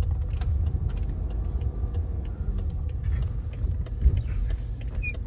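Low, steady rumble of engine and road noise heard from inside a car cabin as the car moves slowly to park, with a single thump about four seconds in.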